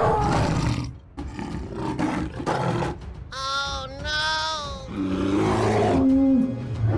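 Dubbed monster roar sound effects, rough and growling, one near the start and another about five seconds in, with two short pitched calls in between.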